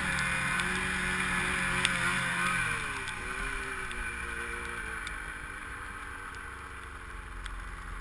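Snowmobile engine running steadily under throttle, then backed off about three seconds in, dropping in pitch and getting quieter as it slows.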